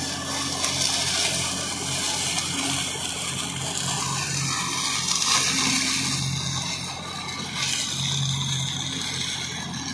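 Deutz-Fahr tractor's diesel engine running steadily under load, driving a rear-mounted mulcher that shreds dry sugarcane leaves, with a continuous rushing noise over the engine hum.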